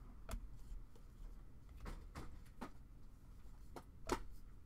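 Trading cards being flipped through by hand: a few soft, scattered taps and slides of card stock, the loudest about four seconds in.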